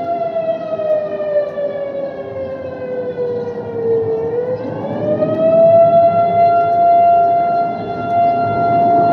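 Outdoor civil defense warning siren sounding its monthly test tone. The steady pitch slowly sags lower until about four seconds in, then climbs back and holds steady, growing louder.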